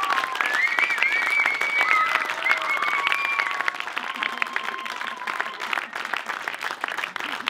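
Crowd applauding, with a few held shouts over the clapping early on; the applause thins and grows quieter over the last few seconds.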